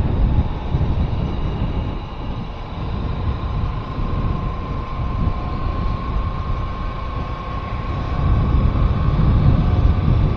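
A vehicle driving along a road: a low, gusty rumble of wind and road noise with a thin steady whine held through most of it, swelling louder near the end.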